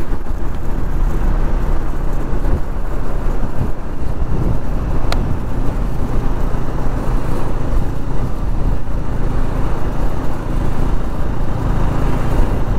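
Bajaj Pulsar NS200 motorcycle's single-cylinder engine running steadily while riding along at a constant speed, mixed with a steady rush of wind and road noise.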